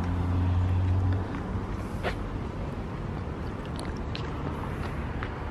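Road traffic: a vehicle engine's low, steady hum that stops about a second in, leaving a steady rush of traffic noise with one click near the two-second mark.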